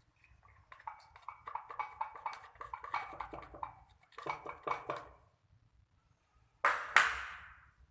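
Quick, rhythmic clinking and tapping of utensils against a dish in two runs, then one louder knock near the end.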